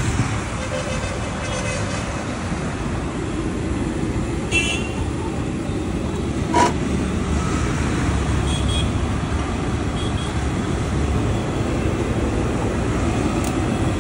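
Street traffic running steadily, with a brief vehicle horn toot about four and a half seconds in and a short sharp knock a couple of seconds later.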